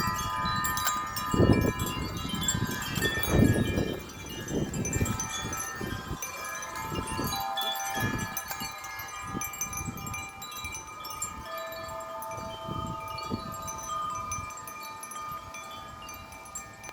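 Several wind chimes ringing continuously in strong gusting wind, many overlapping tones sounding at once. A low gusty rumble of wind on the microphone is strongest in the first few seconds.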